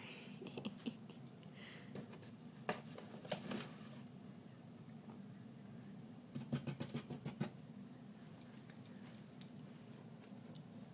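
Scratching and tapping on a cardboard box, in short clusters of quick scratches, the busiest run about six and a half seconds in, over a low steady hum.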